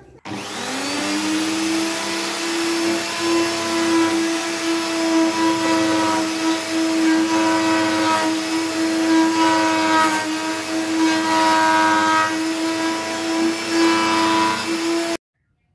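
Electric plunge router starting up and running at full speed while its bit cuts into a wooden board; the high whine rises in pitch over the first second, then holds steady with slight wavering as the bit works, and stops abruptly near the end.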